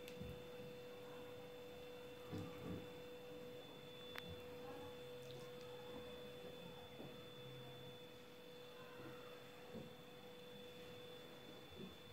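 Faint room tone: a steady electrical hum with a high whine, and a few soft knocks from hands handling dough and filling on the pastry board.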